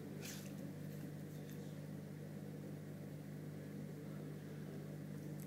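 A steady low hum fills the room, with one brief short rustle about a quarter of a second in.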